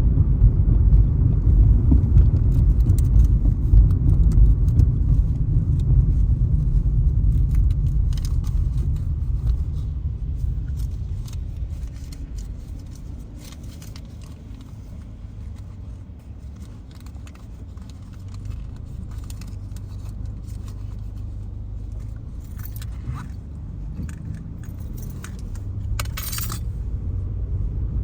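Low road and engine rumble of a car being driven, heard from inside. It fades about halfway through as the car slows, then builds again near the end as it speeds up. Light jingling and clicks run over it, and there is a short rattle near the end.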